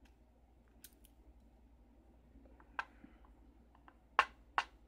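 Small metal clicks from tweezers handling brass lock pins and springs: a few faint ticks, then two sharper clicks about four seconds in, half a second apart.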